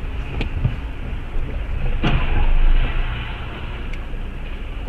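Steady low rumble of a car's engine and road noise heard inside the cabin through a dashcam microphone. A few sharp clicks come through it, the strongest about two seconds in, followed by a brief rise in noise.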